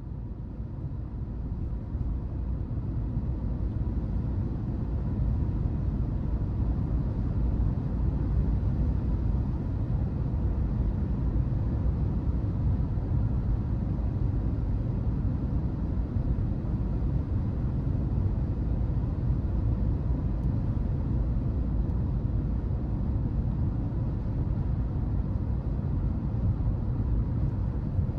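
Car driving along: a steady low rumble of engine and road noise, fading in over the first few seconds.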